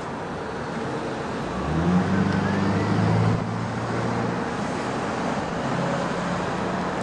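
Road traffic: a motor vehicle's engine hum swells, loudest about two to three seconds in, then settles to a steadier, quieter hum over background street noise.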